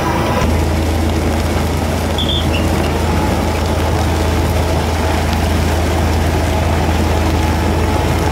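Fishing vessel's machinery running, a steady low drone under an even rushing noise.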